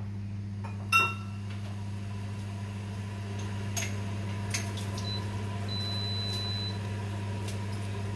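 Steady electrical hum of an induction cooktop heating a steel pot of simmering congee. A single metallic clink about a second in, followed by a few faint ticks.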